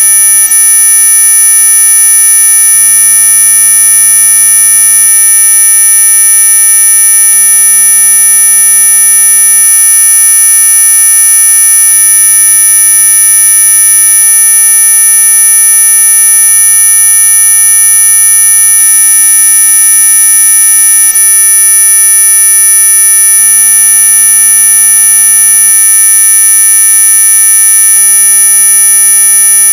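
Loud, synthesized electronic tone made as an ultrasonic mosquito repellent sound: several steady pitches held together without any change, the strongest ones very high.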